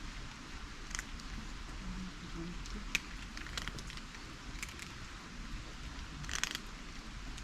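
Cats eating food, with scattered short crunching clicks as they chew.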